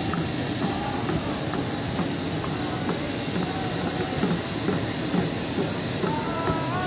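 Steady, fairly loud noise of a parked jet airliner. Short bits of voices come through near the end.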